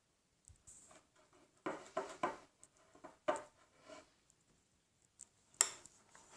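Slime being mixed with borax water in a bowl: a few short, soft sticky squelches and scrapes, with a sharper tap or click near the end.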